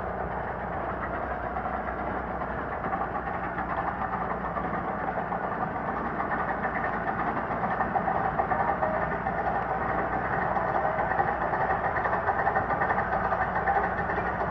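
A 15-inch gauge steam locomotive running with its train, giving a steady, rapid chuff that grows gradually louder.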